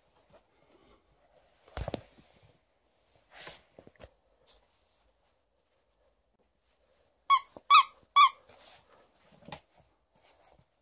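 A squeaker in a fabric clownfish dog toy squeezed by hand three times in quick succession, each a short, loud, pitched squeak. Before that there are a soft knock and a rustle of the toys being handled.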